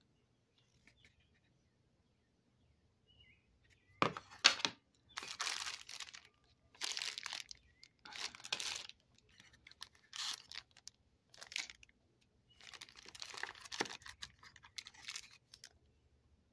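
Clear plastic bags of small math manipulatives crinkling as they are handled, in a series of rustling bursts starting about four seconds in. A couple of sharp knocks are among them, the loudest near the start of the rustling.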